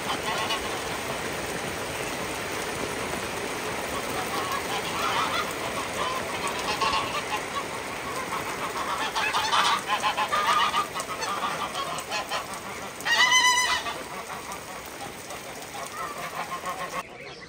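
Farmyard fowl, goose-like, honking repeatedly over a steady hiss, with the loudest single honk about 13 seconds in.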